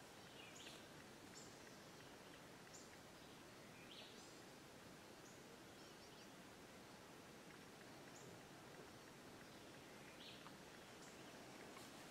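Near silence: faint woodland ambience with a few scattered short, high bird chirps.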